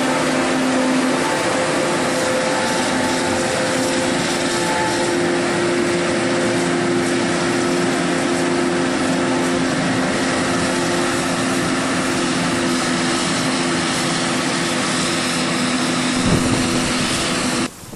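Claas Jaguar 880 self-propelled forage harvester running, a loud steady machine din with a constant hum. It cuts off abruptly near the end.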